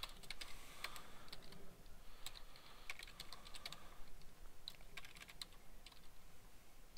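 Computer keyboard being typed on: sharp key clicks in short, irregular runs.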